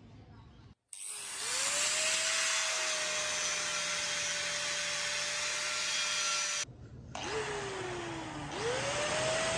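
Small high-speed electric motor of a power tool spinning up and running with a steady whine over a loud hiss. It cuts off after about six seconds, restarts, its pitch sags, then it climbs back up to speed near the end.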